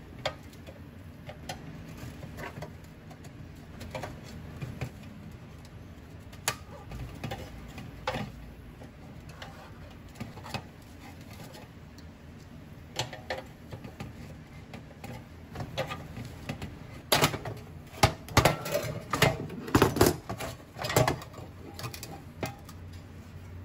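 Pressed-steel toy truck being taken apart: scattered light metal clicks and scrapes as its bent tab fasteners are pried, then a run of loud clanks and rattles from the sheet-steel parts near the end.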